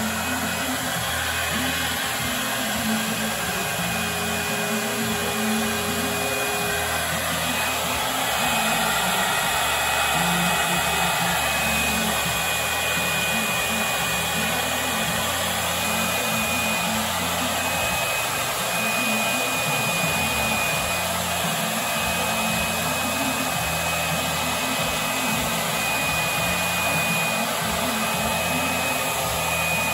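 HVLP paint sprayer running steadily: the turbine blowing air through a cup spray gun as it sprays paint, an even hiss with a faint high whine.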